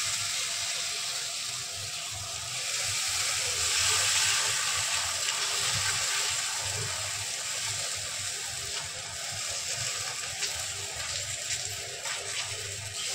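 Semolina pancake batter sizzling on a hot pan as it is poured and spread with a ladle. The sizzle swells about four seconds in, then slowly eases.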